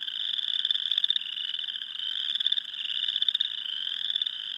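A dense spring chorus of many small callers trilling together without a break: finely pulsed high calls that overlap and swell in and out.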